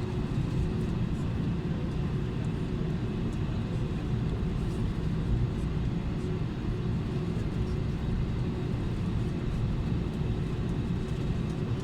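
Steady low rumble in the cabin of an Airbus A320neo taxiing after landing, its Pratt & Whitney PW1100G geared turbofans at idle, with a faint steady hum under it.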